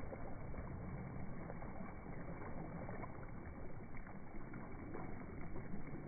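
Small waves lapping and washing over a pebble shore, a steady splashing wash of water over stones.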